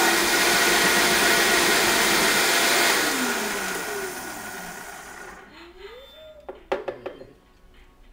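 High-powered countertop blender running at full speed, pureeing cranberries and apple. About three seconds in it is switched off and the motor's pitch falls as it spins down. A few sharp clicks follow as the lid is pulled off the jar.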